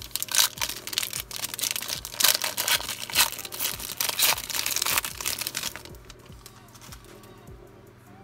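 Foil wrapper of a Mosaic No Huddle football card pack crinkling and tearing as it is ripped open by hand. It goes quiet about six seconds in, leaving only soft rustles as the cards are handled.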